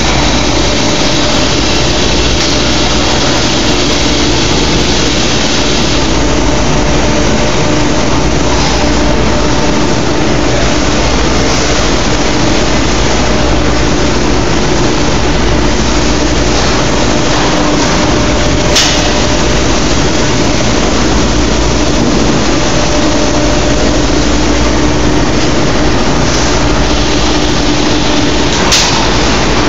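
Steady, loud drone of running industrial machinery, with a few faint steady tones in it and two brief clicks, one about two-thirds of the way through and one near the end.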